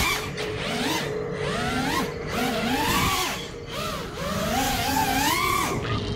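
Brushless motors of a 4S 5-inch FPV quadcopter whining, their pitch sweeping up and down again and again as the throttle is worked through the flight, with air rushing past the onboard camera's microphone.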